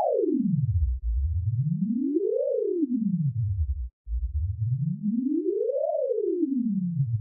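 A single electronic tone sliding slowly up and down in pitch. It falls from high to very low, then rises and falls twice more, with a short break about four seconds in.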